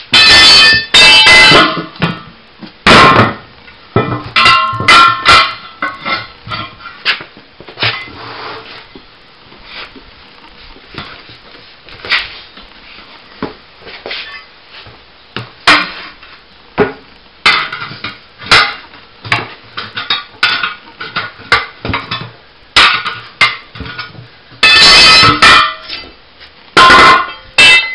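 Steel flat bar clanking and scraping against a steel wheel rim as a car tire is levered off the wheel by hand, with repeated metal knocks, several of them ringing. The strikes come thick and loud in the first few seconds and again near the end, with lighter knocks and scrapes between.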